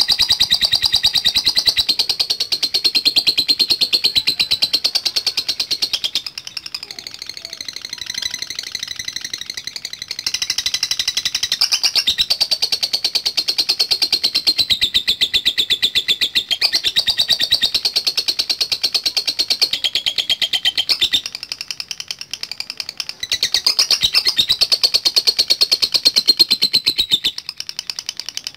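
Lovebird singing its long 'ngekek' song: a very fast, high, chattering trill held for several seconds at a stretch, in three or four long bouts with short breaks between them.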